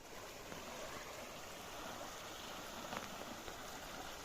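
A stream running: a steady, even rush of flowing water.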